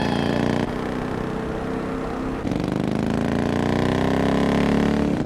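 Vehicle engine running hard in a chase, its pitch climbing steadily over the last few seconds as it accelerates, with a couple of abrupt jumps in the sound.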